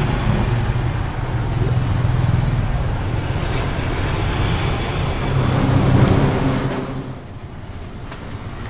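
Road traffic, a steady engine hum with a rushing haze over it. It swells about six seconds in, then drops quieter about a second later.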